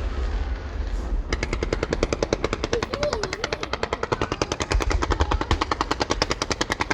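Fireworks going off in a rapid, even run of sharp cracks, about ten a second, starting about a second in and continuing without a break.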